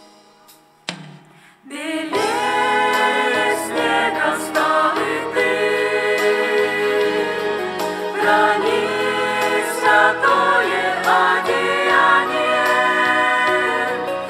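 A mixed group of young men and women singing a hymn together as a choir, with a low accompaniment line beneath. The voices come in about two seconds in, after the last notes of an instrumental passage fade away.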